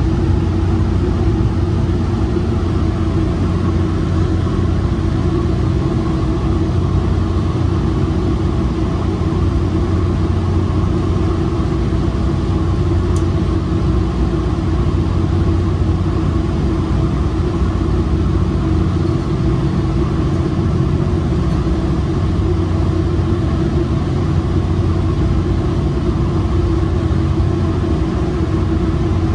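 Metrolink commuter train running, heard from on board: a steady rumble of wheels on rail with an even low hum, and one faint click partway through.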